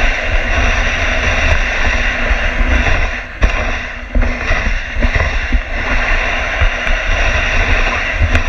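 Dogsled moving over a packed snow trail: the runners hiss steadily while wind buffets the microphone with a low rumble, and a couple of sharp knocks come about three and a half and four seconds in.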